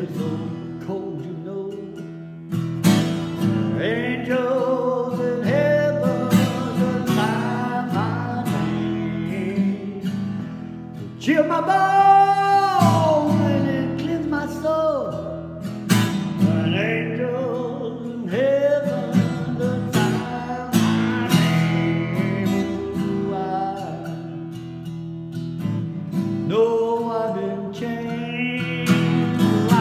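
A man singing and strumming an acoustic guitar in a reverberant church foyer. About twelve seconds in he holds one long, loud high note with vibrato.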